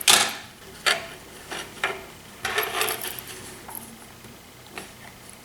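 Flathead screwdriver tip clicking and scraping against the plastic keycard housing and the CR2032 coin cell while prying the battery out. A sharp click at the start, lighter clicks about a second apart, and a short run of scraping in the middle.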